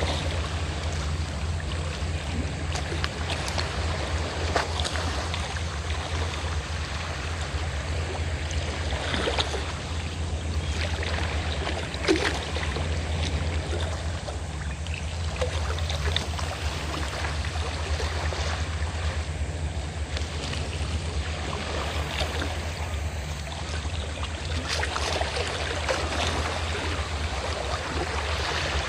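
Small waves washing and splashing at the shore over the steady low drone of a fishing boat's engine, with a sharper splash about twelve seconds in.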